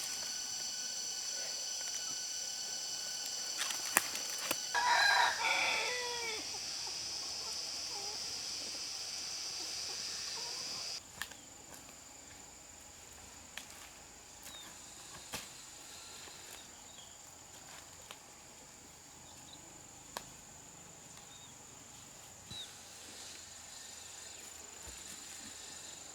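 A rooster crows once, about five seconds in, over a steady high-pitched insect drone that cuts off suddenly a few seconds later.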